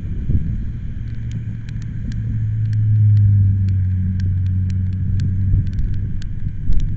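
Wind buffeting the microphone with a low rumble, while a low hum swells to a peak about three seconds in and fades out, with scattered faint ticks.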